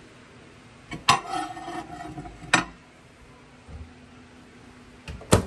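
A ceramic plate set down on a microwave oven's glass turntable, with a ringing clink about a second in and a second sharp knock a moment later. Near the end the microwave door shuts with a loud click.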